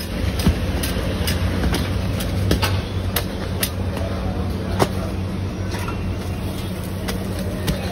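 Sharp clicks and taps of a metal spatula on a flat griddle as parathas are turned and stacked, over a steady low hum from the stall.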